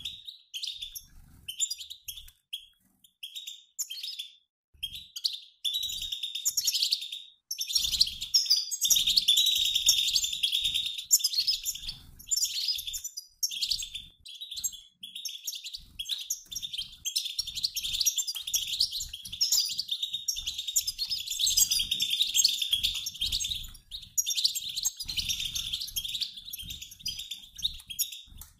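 A mixed group of European goldfinches, males and females, twittering together in quick high chirps and trills, like a flock in flight. The calls are scattered for the first few seconds, then run thick and nearly continuous from about six seconds in, with a few short breaks.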